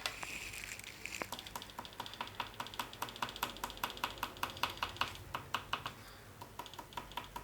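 Oil pastel stick dabbed onto paper over and over, making small dots: a fast run of light taps, several a second, with a short pause about six seconds in.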